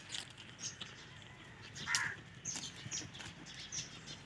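Faint scattered bird calls: several short high peeps and one louder, short call about two seconds in, over light ticking.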